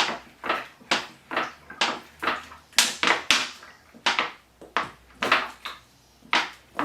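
Plastic water bottle being squeezed by hand over and over, its walls crackling about twice a second. Each squeeze forces water out into the bird waterer's dish.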